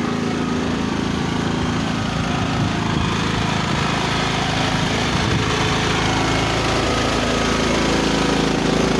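Engine of a heavy-haul modular trailer's hydraulic power pack running steadily, growing a little louder about halfway through.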